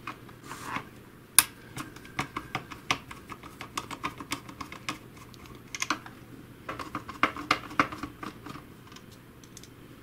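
Screwdriver backing screws out of a robot vacuum's plastic chassis: a run of irregular clicks and ticks, the sharpest about a second and a half in.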